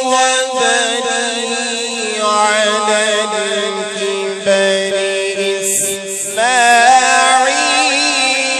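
A man reciting the Quran in the melodic tajweed style, drawing out long held notes with wavering, ornamented pitch. There is one short break about six seconds in before the chant resumes.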